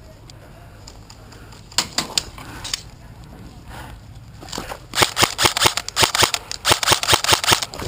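Airsoft guns firing: a few single shots about two seconds in, then a rapid string of loud sharp shots from about five seconds in, roughly six a second.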